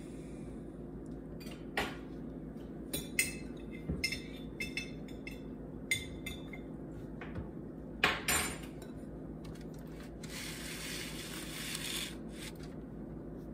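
A utensil clinking against a small glass bowl as black olives are picked out of it: a scatter of irregular clinks, the loudest about eight seconds in, then a couple of seconds of scraping hiss near the end.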